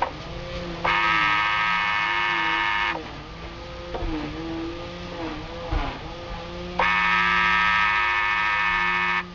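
Small electric extending motor of a GMC Sierra power towing mirror whining as it drives the mirror head along its freshly cleaned slide track, in two runs of about two seconds each, starting and stopping abruptly: power applied one way, then reversed.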